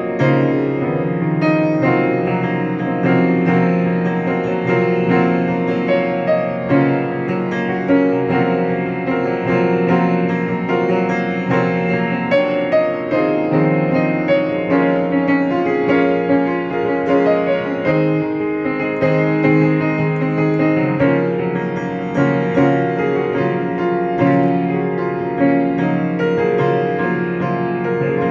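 Instrumental piano music, a piece of held notes and chords.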